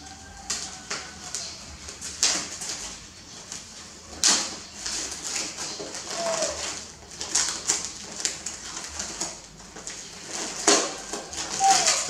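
Cellophane wrapping on a gift basket crinkling and crackling in irregular handfuls as it is pulled open and unwrapped. Two brief squeaks stand out, one about halfway through and one near the end.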